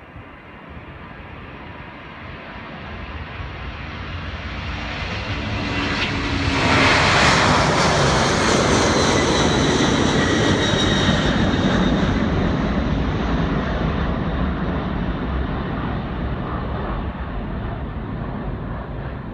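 McDonnell Douglas MD-10 three-engined freighter's turbofans at takeoff power as it rolls and climbs out. The engine noise builds to its loudest about seven seconds in, with a high whine on top, then slowly fades as the jet climbs away.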